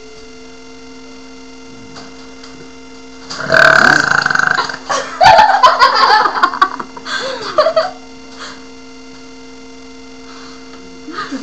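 A person burping loudly and at length, starting about three and a half seconds in, over a steady electrical hum.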